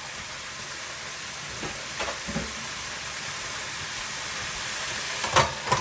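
Whole chicken deep-frying in hot oil in a deep fryer, giving a steady sizzling hiss. A few faint knocks come about two seconds in, and two sharp clacks come near the end.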